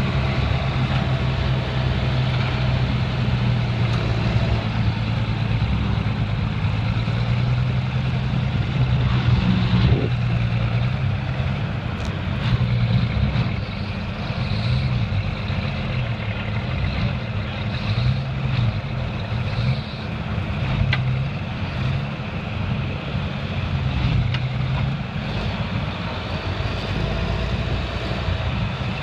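A motor vehicle's engine running continuously with a steady low hum. About halfway through, its pitch starts to waver up and down.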